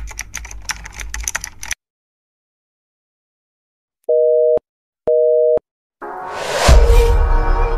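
Edited intro sound effects: a quick run of clicks over a low hum that stops abruptly, then two short beeps of a telephone busy signal a second apart. Then a swoosh and a deep boom lead into music.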